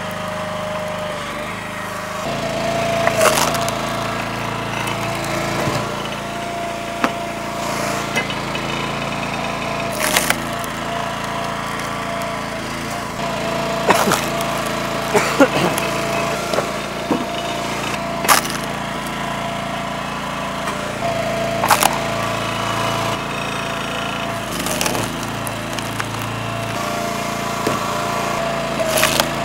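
Split-Fire 3490 two-way log splitter running steadily, its engine drone and a steady whine underneath, with sharp cracks of wood splitting every three or four seconds as rounds are pushed through the knife.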